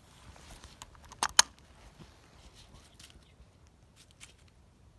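Two sharp clicks in quick succession a little over a second in, among faint scattered ticks and taps.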